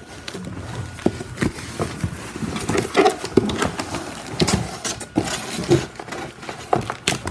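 Cardboard laptop packaging being unfolded and handled by hand, with irregular scrapes, taps and rustles of cardboard and of the plastic retention film loosening around the laptop.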